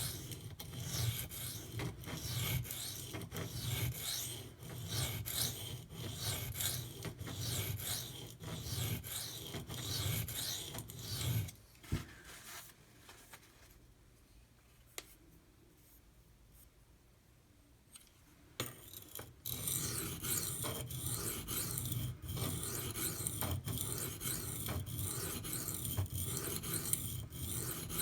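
A steel knife blade, the Maxamet edge, is stroked back and forth over a coarse, water-soaked 150-grit Kyoto whetstone with a repeated gritty rasping. The rasping stops for several seconds in the middle and then resumes. This is the stage of grinding the dulled edge down toward an apex.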